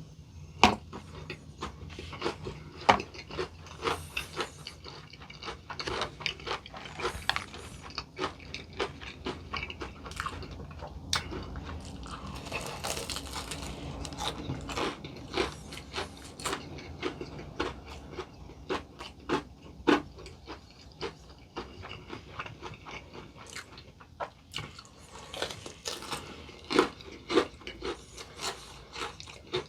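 Close-miked chewing of crispy potato-crusted fried chicken: many sharp, irregular crunches of the crust.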